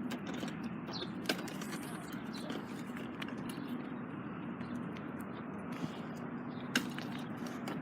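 Outdoor street ambience: a steady low rumble with scattered light clicks and taps. A faint steady hum comes in about halfway through.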